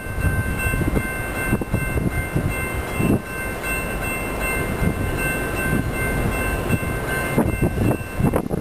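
Railway level-crossing warning bell ringing steadily over gusty wind noise on the microphone, while a train approaches.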